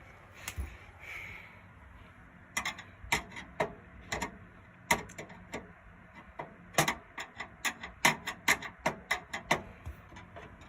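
Irregular sharp clicks and taps of a screwdriver and screws on a PC case's metal PCI slot covers as the screws are taken out. A few at first, then quicker and more frequent after the middle.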